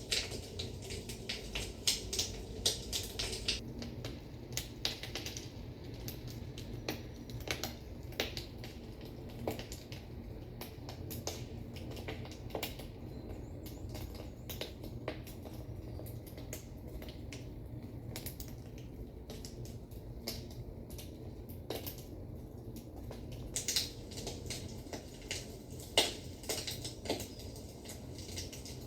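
Crackling of burning firewood: irregular sharp pops and snaps, thickest near the start and again near the end, over a steady low hum.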